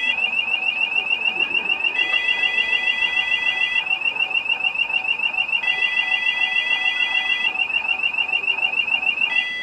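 Canal lock's electronic warning alarm sounding a rapid high warble, about seven pulses a second. A second steady beep tone comes and goes in spells of about two seconds, over a steady hum.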